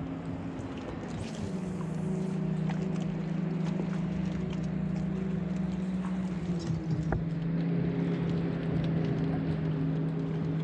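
A steady motor hum that shifts slightly in pitch a couple of times, with a few faint clicks and knocks.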